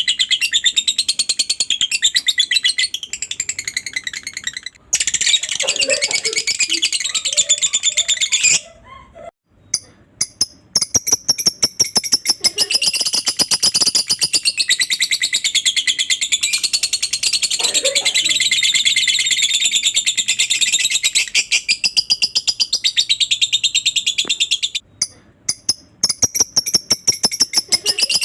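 Lovebird ngekek: a long, rapid, high-pitched chattering trill kept up for many seconds, broken by two short pauses, one about nine seconds in and one about twenty-five seconds in.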